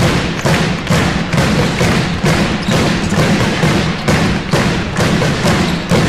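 A drum beaten in a steady rhythm, about two to three thumps a second.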